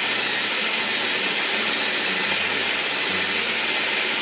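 Electric burr coffee grinder running steadily, grinding beans for espresso straight into a portafilter basket.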